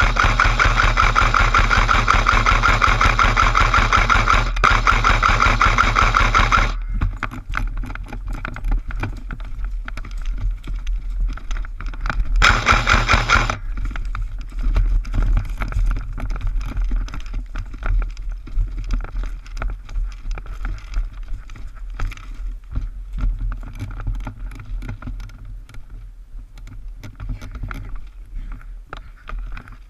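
AK-style airsoft rifle firing on full auto: a long, rapid burst of about seven seconds, then a second short burst of about a second near the middle. Between and after the bursts there are irregular knocks and rustling from the player moving.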